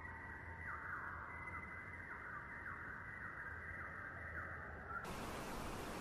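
Yellow-billed oxpeckers giving harsh rasping calls, a short downward stroke repeated about every two-thirds of a second. About a second before the end this cuts off into a wider hiss of outdoor ambient noise.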